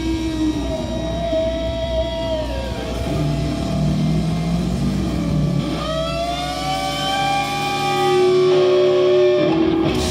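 Live rock band playing, with electric guitar holding long notes that bend and slide in pitch over bass and drums.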